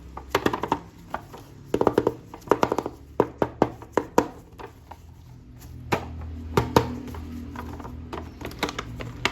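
Irregular sharp clicks and taps of plastic toy pieces being handled, in quick clusters, over faint background music.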